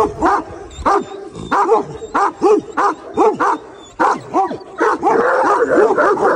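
Dogs barking repeatedly, about two to three barks a second. The barks overlap more densely around five seconds in.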